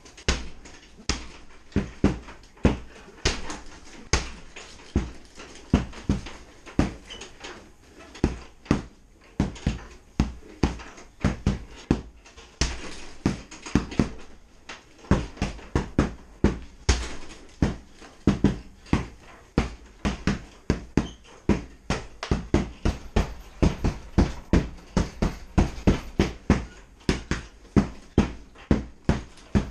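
Repeated thuds of blows landing on a heavy punching bag, in uneven flurries of one to several hits a second.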